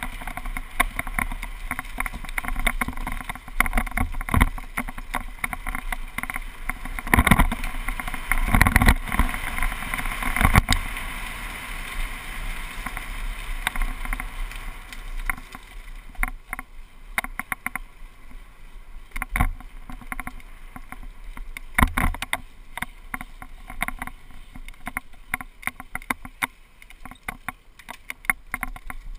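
A GoPro HD camera mount rattling on a mountain bike during a downhill ride, a rapid, uneven clatter of knocks over tyre and wind noise. The rattling is dense and loud through the first half and thins to scattered knocks in the second half.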